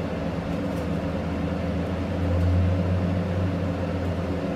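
A steady low mechanical hum with a few held tones, growing louder for about two seconds in the middle.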